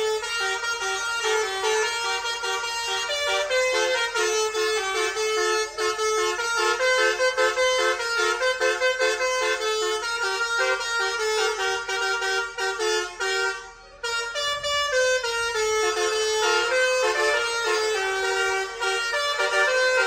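Basuri telolet multi-tone bus horn played from a pianika-style keyboard, sounding a quick tune of changing notes, with a brief break about fourteen seconds in.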